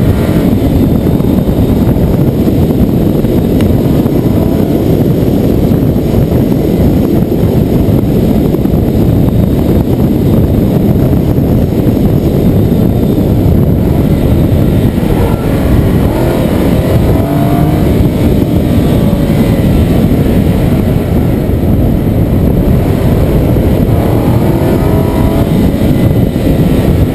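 Nissan 370Z on the move, its 3.7-litre V6 running under a loud, steady rumble of engine and road noise, with no sharp revving.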